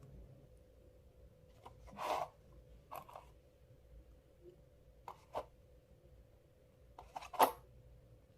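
Hands working clear slime: a few short sticky clicks and crackles, the loudest near the end, over a faint steady hum.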